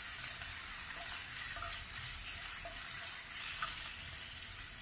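Green chilli, garlic and ginger paste sizzling steadily in hot oil in a nonstick frying pan, stirred with a wooden spatula that gives a few faint scrapes.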